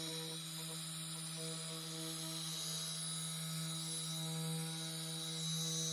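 DeWalt cordless dual-action polisher running steadily with a microfiber pad on car paint, a constant even motor hum.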